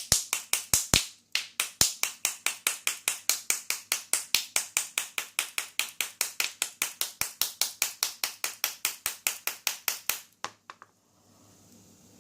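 Rapid, even tapping on a small lock cylinder being gutted, about five sharp clicks a second. There is a short break about a second in, and the tapping stops about eleven seconds in.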